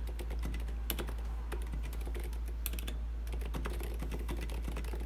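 Typing on a custom mechanical keyboard with Kailh Box Silent switches and SA-profile keycaps in an aluminium case: a fast, irregular run of soft key clicks, surprisingly quiet, over a steady low hum.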